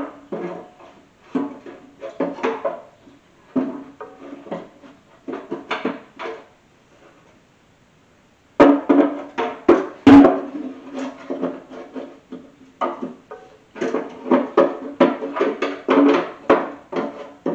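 Background music with plucked notes and percussion. It drops out for about two seconds midway, then starts again.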